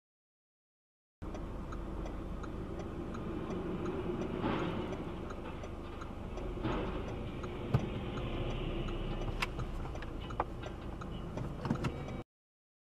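Dashcam audio from inside a car: steady road and engine noise with a regular tick about twice a second, and several sharp knocks of a collision, the loudest about halfway through. It starts about a second in and cuts off just before the end.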